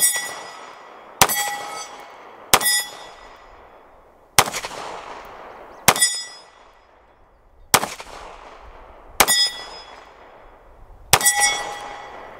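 Taurus GX4XL 9mm pistol fired eight times at a slow, steady pace, about one and a half seconds apart. Each shot is followed by the ringing clang of a steel target being hit.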